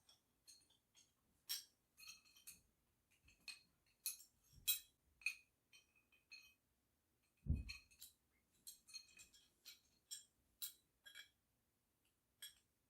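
Scattered small clicks and clinks of hose fittings and a filter being handled and taken apart, with one dull knock about seven and a half seconds in.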